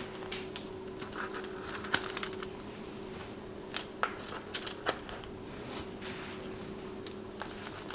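A few soft, scattered taps and light rustles as slices of bread topped as pinchos are set down on a paper-lined serving tray, over a faint steady low hum.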